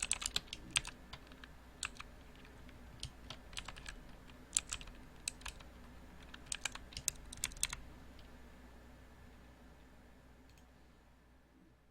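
Typing on a mechanical keyboard: a quick run of keystrokes, then scattered single clacks and a short last flurry, stopping a bit under eight seconds in. A faint low hum underneath fades out near the end.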